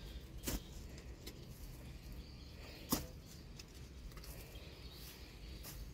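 A long-handled hoe chopping into soil while digging a small hole: two distinct strikes, about half a second in and about three seconds in, the second the louder, with a few faint ticks between.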